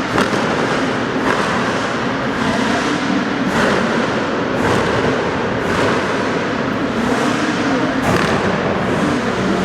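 A series of sharp exhaust pops and bangs from a revved car engine, roughly one a second, over the steady noise of running engines.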